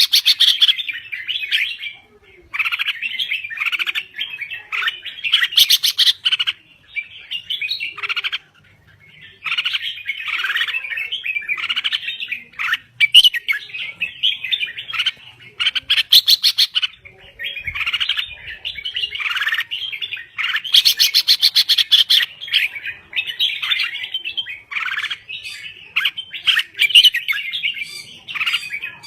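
Red-whiskered bulbul singing vigorously: a long run of quick, varied chirping and warbling phrases, with a few harsher bursts, broken by short pauses about 2, 9 and 17 seconds in.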